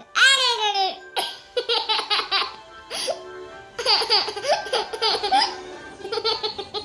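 A baby squeals, a high sound falling in pitch, then breaks into several bouts of rapid giggling laughter, setting himself off with his own noises.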